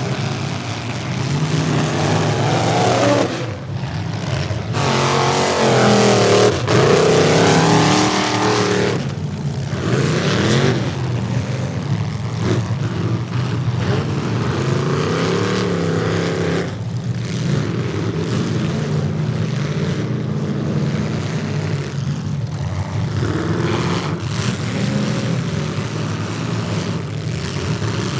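Several demolition derby car engines running and revving hard, their pitch repeatedly rising and falling and overlapping, loudest about six to eight seconds in.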